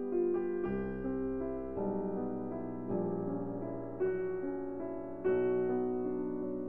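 Background piano music, with chords struck about once a second and left to ring.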